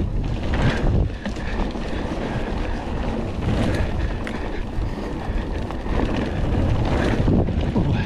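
Wind rushing over the camera microphone and mountain bike tyres rolling on a trail during a fast descent, with a dense low rumble and scattered knocks and rattles from the bike over bumps.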